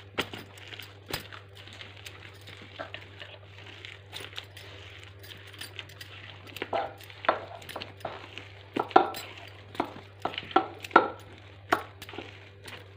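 Urad dal batter being mixed in a bowl: irregular clinks and knocks against the bowl, sparse at first and more frequent in the second half.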